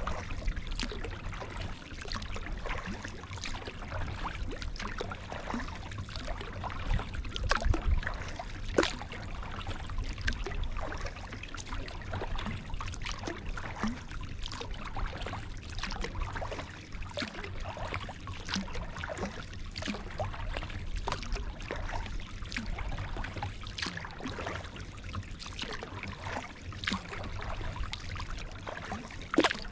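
Kayak paddle strokes: the blades dip into the water and drip and trickle, with many small irregular splashes and a sharper splash near the end. A low rumble runs underneath, strongest about a quarter of the way in.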